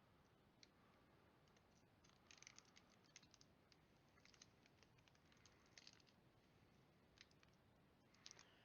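Near silence with faint, scattered clicks and crinkles in small clusters: a foil Pokémon card booster pack being handled and opened.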